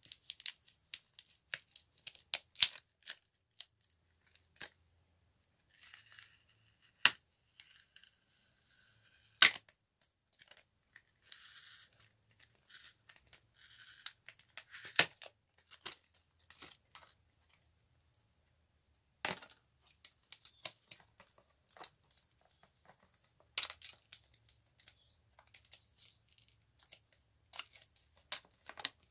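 A cheap tablet being pulled apart by hand. Its plastic and metal parts click and tick irregularly, and there are stretches of crackly peeling about six seconds in and again around eleven to fifteen seconds, as flex cables and adhesive are torn away from the LCD panel.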